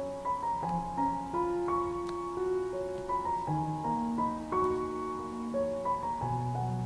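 Soft background piano music: a melody of single notes over held chords, with a low bass note coming in about six seconds in.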